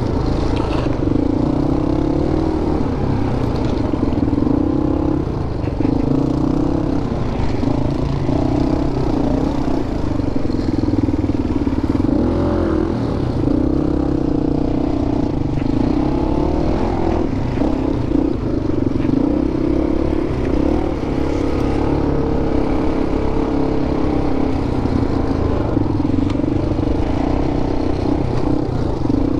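Single-cylinder dual-sport motorcycle engine running under way, its note rising and falling in pitch with the throttle.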